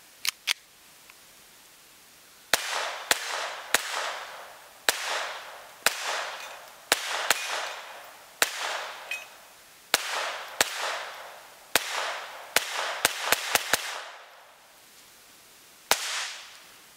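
Kel-Tec P17 .22 LR pistol fired without a suppressor: about seventeen sharp shots at an uneven pace of roughly one a second, each trailed by a short echo, with a quick run of four shots near the end and one last shot after a brief pause. A few light clicks come just at the start.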